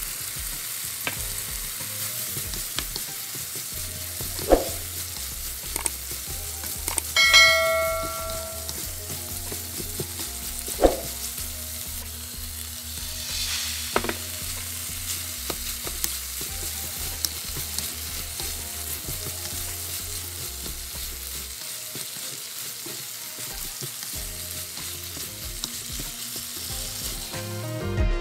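Pork, long green beans and red curry paste sizzling in a hot pan as they are stir-fried, with scattered scrapes and knocks of a wooden spatula against the pan. About seven seconds in, something struck on the pan rings clearly for a second or so.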